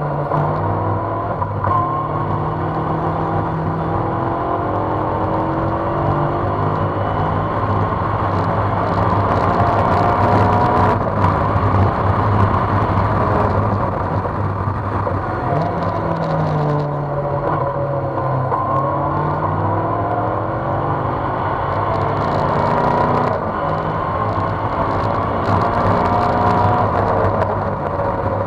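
Engine of an open-cockpit track car heard onboard at speed, its pitch rising and falling as the driver accelerates and brakes through the gears, with a dip and climb in revs a little past halfway. Wind and road noise run under it throughout.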